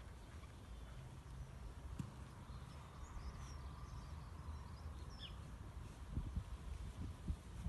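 Outdoor ambience: small birds chirping now and then over a low rumble, with a sharp click about two seconds in and a few dull thumps near the end.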